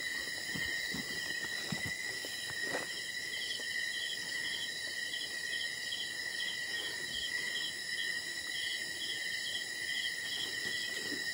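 Night insects chirring steadily in several high pitches, one of them pulsing a bit under twice a second, with a few faint soft knocks in the first three seconds.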